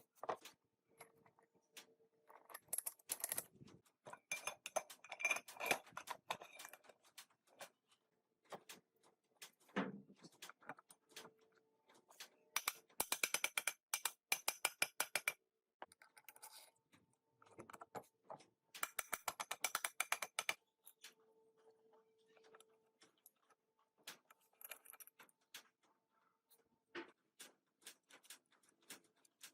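Metal parts and hand tools of a manual gearbox being handled: scattered sharp clicks and clinks, with two runs of rapid, evenly spaced clicks, one about halfway through and one a few seconds later.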